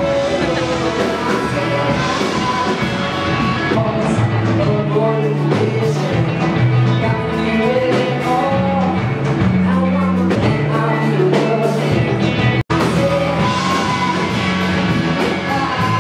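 Rock music with a singing voice and guitar, cut off for an instant about two-thirds of the way through.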